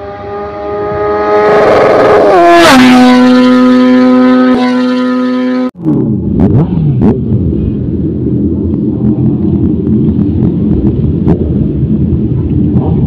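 An intro engine-rev sound effect: a loud, steady motor tone that drops in pitch with a whoosh about two and a half seconds in, holds at the lower pitch, then cuts off abruptly. Then several sport motorcycle engines, Honda CBR650R inline-fours among them, run at low speed with short revs as the bikes roll into line.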